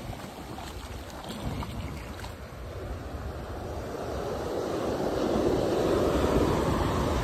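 Shallow beach surf washing in over the sand, a rushing of foamy water that swells louder over the second half. Wind buffets the microphone with a low rumble throughout.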